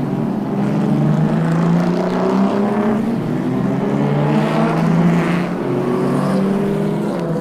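Car engine running hard and accelerating, its pitch climbing in steps as it goes up through the gears.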